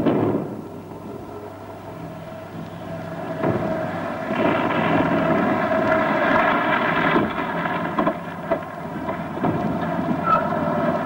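Lorry engine running, swelling louder about four seconds in as the lorry draws near, then easing off after about seven seconds.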